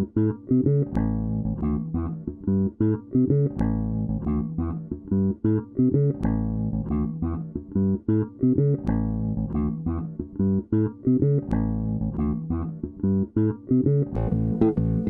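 Background music: plucked guitar over a bass line, playing a short figure that repeats every few seconds.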